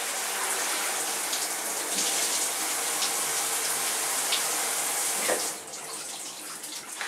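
A shower runs, its spray pattering steadily in the tub behind the curtain, then shuts off about five and a half seconds in.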